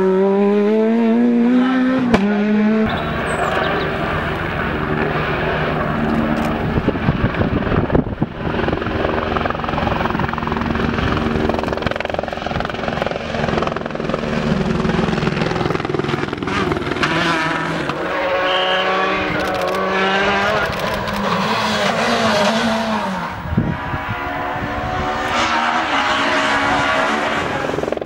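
Rally cars going flat out on a stage, one after another: the engines rev hard and shift up through the gears, the pitch climbing, breaking at each shift and dropping as each car passes.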